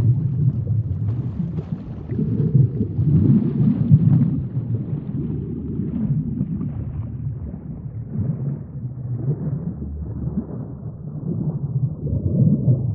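Underwater sea ambience: a deep, muffled rumble of moving water that swells and eases irregularly.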